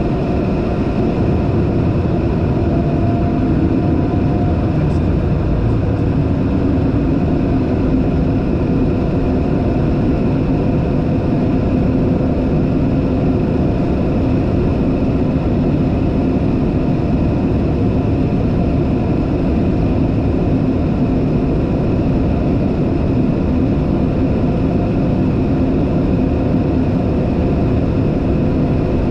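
Light aircraft's engine and propeller running steadily in level flight, heard from inside the cockpit as an even noise with a faint steady hum.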